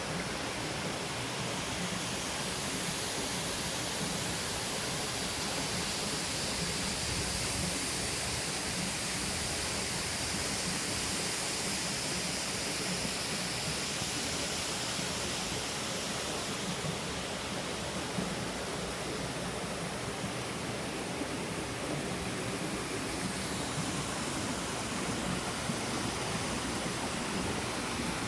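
Steady, unbroken rush of a tall free-falling waterfall, a drop of about 60 metres.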